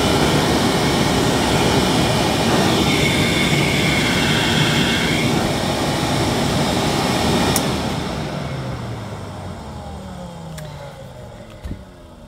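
1957 Hoover Constellation model 822 canister vacuum cleaner running steadily with a rushing air sound; its suction is weak and air leaks from gaps in the casing. About seven and a half seconds in it is switched off with a click and the motor winds down, its hum falling in pitch.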